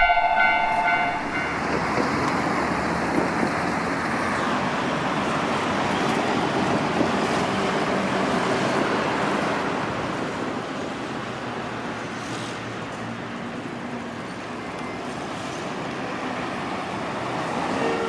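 Street traffic noise, a steady rush of cars passing on the road, easing off after about ten seconds. The last notes of a chiming jingle fade out in the first second.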